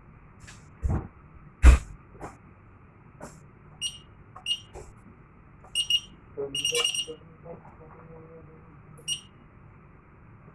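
Fire alarm control panel's electronic buzzer giving short, high-pitched beeps at irregular intervals, one held for about half a second. Two sharp knocks come about a second in and shortly after; the second is the loudest sound.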